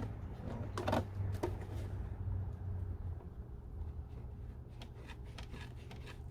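A rubber weather seal being pulled off a car body by hand, with scraping and a few light clicks around the first second and a half and fainter ticks later. A steady low hum runs underneath.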